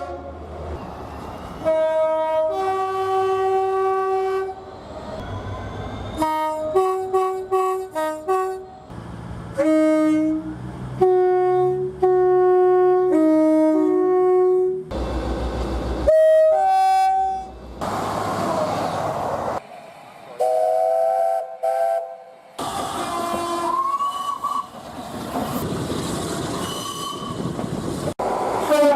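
Train horns sounded in a string of short, cut-together recordings: two-tone and multi-note horns giving short toots and longer blasts, stepping between notes, with the noise of trains running on the rails between some of them.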